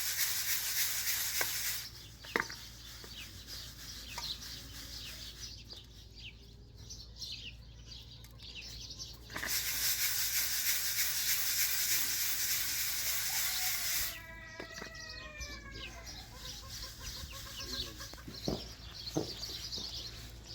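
A hen or rooster clucking, a run of falling calls just after a stretch of loud, steady rushing noise stops. Two such rushing stretches, each a few seconds long, are the loudest sound, with faint clicks and knocks in between.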